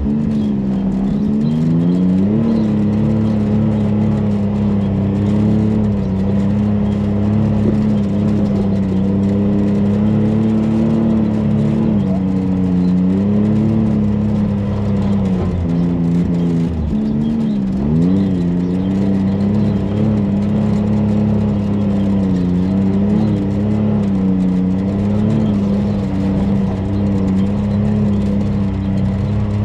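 Side-by-side UTV engine running at low, changing throttle while crawling over slickrock, its pitch steady for stretches and then dipping and rising again several times as the throttle is eased and reapplied.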